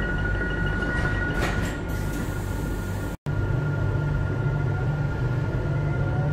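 Inside a Renfe commuter electric train: a steady low hum with a constant electrical tone, and rapid electronic beeping, about four beeps a second, that stops about a second in. After a brief cut, the train is moving off with a faint whine that rises slowly in pitch as it gathers speed.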